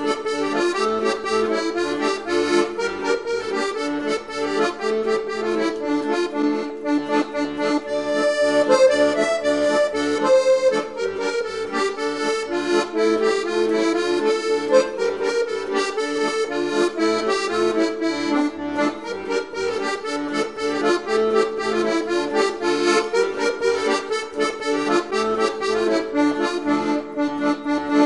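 Background instrumental music with a steady beat: sustained chords over an even, pulsing bass.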